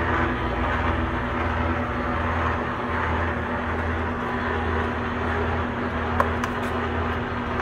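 Monarch 10EE lathe running under power from its single-phase motor and variable-speed drive: a steady mechanical hum with a low, pulsing drone. A single sharp click about six seconds in.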